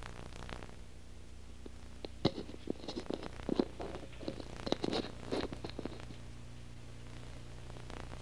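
Steady low electrical hum with scattered clicks and rustling in the middle, from about two to six seconds in.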